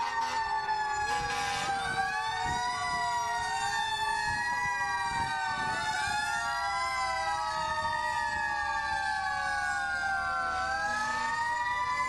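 Several fire truck sirens wailing at once, their overlapping tones each rising over about a second and then sliding slowly down, again and again.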